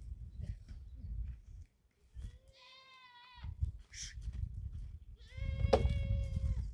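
Goats bleating: two steady calls, a short one about two and a half seconds in and a longer one near the end.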